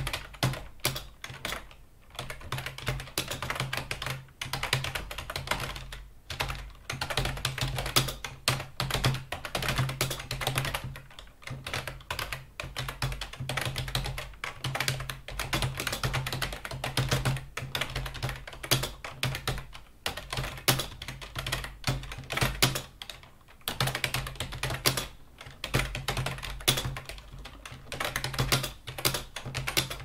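Typing on a computer keyboard: a dense run of key clicks, broken by short pauses every few seconds.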